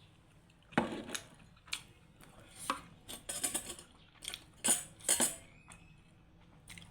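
Cutlery clinking and scraping against a dish, in a string of sharp irregular clicks and clatters that are loudest around the middle.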